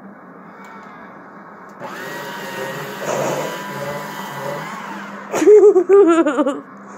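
A steady whirring noise for about three seconds, then a loud, drawn-out call whose pitch wavers up and down for just over a second: a cat yowling.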